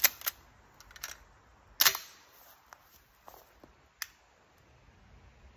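Remington Model 1100 gas-operated semi-automatic shotgun being loaded and handled: a series of sharp metallic clicks and clacks from its action, the loudest a clack about two seconds in that rings briefly, then a few lighter clicks as it is shouldered.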